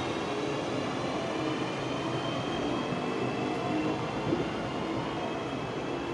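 Class 323 electric multiple unit pulling away and receding along the track, wheels rumbling on the rails with a steady high whine from its electric traction equipment.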